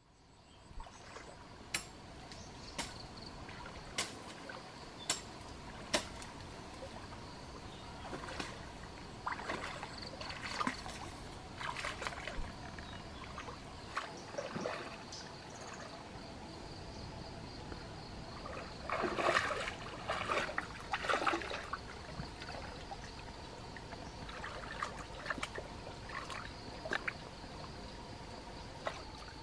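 Shallow stream water trickling and sloshing around the legs of someone wading knee-deep, with a cluster of louder splashes about two-thirds of the way through. A steady high tone runs underneath, and sharp clicks come about once a second near the start.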